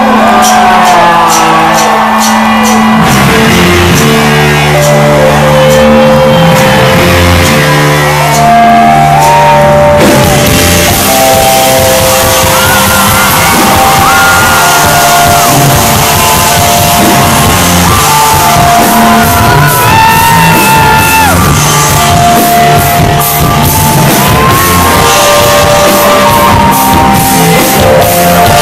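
Live rock band playing loudly in a large hall, with held melody lines over bass, guitar and drums. The full band comes in heavily with crashing cymbals about ten seconds in.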